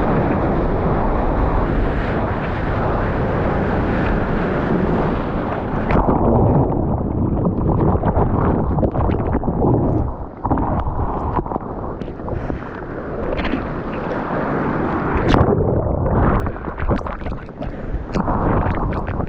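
Surf water rushing and wind buffeting a GoPro's microphone. About six seconds in the sound turns duller and is broken by many short splashes.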